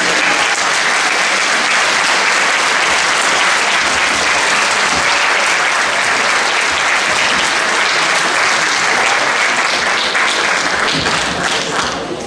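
Audience clapping steadily, easing off slightly near the end.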